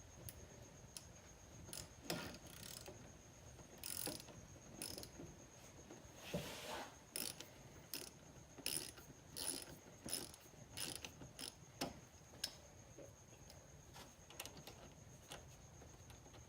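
Small ratchet with a 10 mm socket clicking faintly in short, uneven runs as it loosens the battery terminal's clamp nut.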